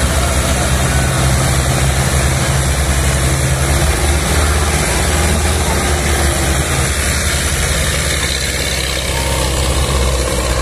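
Diesel tractor engine running hard under heavy load, straining to pull a loaded sugarcane trolley. Its low note holds steady, with a shift in tone about four seconds in.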